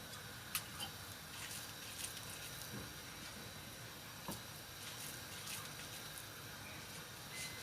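Pot of water simmering with a faint steady hiss, with a few light clicks and taps as dough balls are set into the pot to steam.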